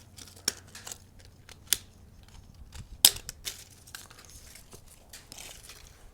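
Crinkling rustles and several sharp clicks as broken smoke-detector pieces are shoved into the trash. The loudest click comes about three seconds in.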